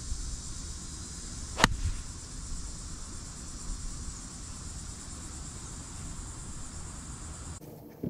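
Golf iron striking a ball: one sharp click about a second and a half in, over a steady buzz of insects.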